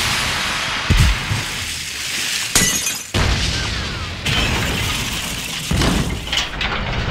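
A rapid montage of loud, pre-boosted processed sound effects, among them crashes and a shattering, breaking sound, with a new effect cutting in every second or two.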